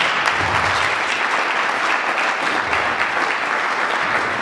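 Audience applauding steadily, a dense clatter of many hands welcoming a person who has just been introduced by name.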